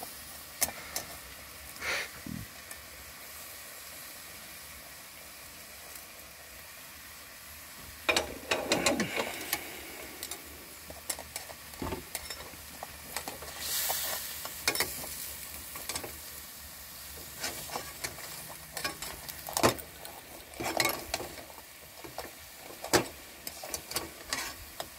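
A metal spatula scrapes and clanks against a steel pan as it turns whole crabs that are cooking over a gas burner. A faint steady sizzle runs underneath. The scraping comes in bursts, heaviest about eight seconds in and again in the last third.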